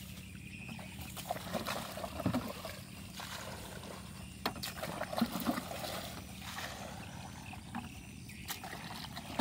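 Water poured from a plastic bucket into a field rat's burrow, sloshing and gurgling with irregular splashes, to flood the rat out of its hole.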